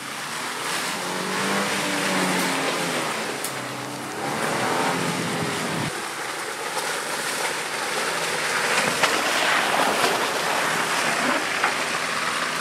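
Land Rover Defender's engine running under load, its pitch rising and falling as it crawls along a muddy track, over the steady hiss and slosh of tyres through wet mud and leaves.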